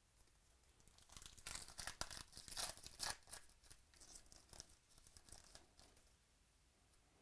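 Foil wrapper of a baseball card pack being torn open and crinkled by hand: crackling tearing that starts about a second in, is loudest over the next two seconds and trails off by about six seconds in.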